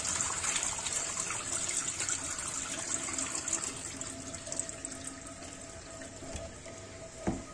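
Water draining and trickling out of a strainer full of freshly washed bathua greens, the splashing gradually tapering off, with a soft knock near the end.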